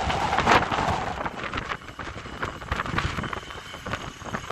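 Wind buffeting the microphone, a rushing noise with irregular crackle that is loudest for the first second and a half and then eases off.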